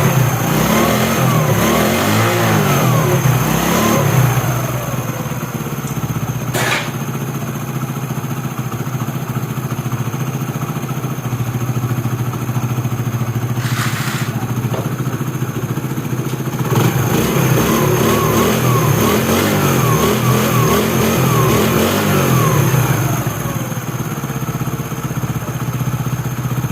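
Honda CD70's small single-cylinder four-stroke engine running with a freshly fitted timing chain and tensioner rubbers, to check for timing-chain noise. It is revved up and down in quick blips near the start and again about two-thirds of the way through, idling in between, with a sharp click about seven seconds in and another near halfway.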